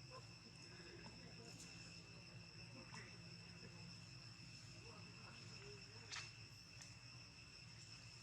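Faint, steady high-pitched insect trilling, with a few soft clicks over it.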